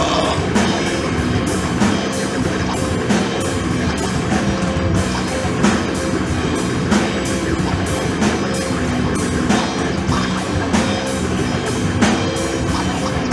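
Instrumental hardcore rock played by a full band: a drum kit keeps a steady beat of evenly spaced hits under electric guitar.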